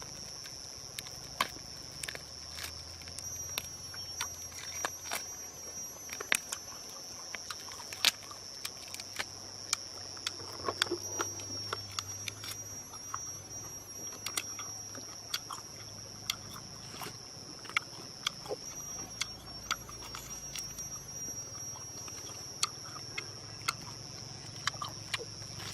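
Steady high-pitched insect chorus with many scattered sharp clicks and crackles.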